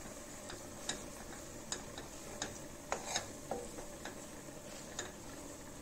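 Metal ladle scraping and clinking against a metal kadhai as khoya (mawa) is stirred and roasted on a slow flame, starting to turn golden. About seven sharp clicks, irregularly spaced, over a faint steady hiss.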